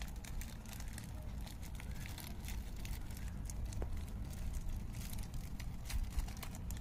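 Soft crinkling and scattered small crackles from handling a plastic seed packet, over a low steady rumble.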